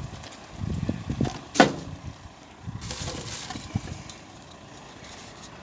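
Deposit cans and bottles being handled and loaded into a bag: a run of knocks and rustles with one sharp clank about one and a half seconds in, a rustle and a last knock a couple of seconds later, then it goes quiet.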